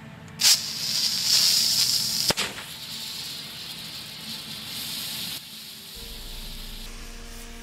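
Red hand flare lit with a sudden burst, then hissing loudly as it burns, a sharp crack about two seconds in; the hiss carries on more quietly and stops about five seconds in.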